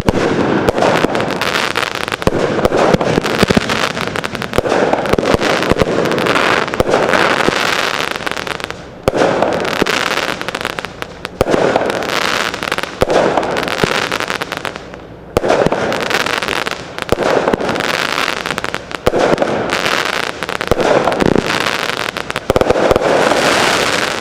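Consumer aerial fireworks going off in a rapid, continuous barrage of launches, bangs and crackling, with brief lulls about 9, 11 and 15 seconds in.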